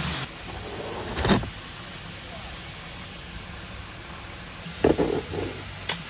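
Quiet vehicle-interior room tone with a sharp click about a second in and a few short thuds near five seconds. A small click just before the end as a rocker switch on a 12 V power control panel is pressed.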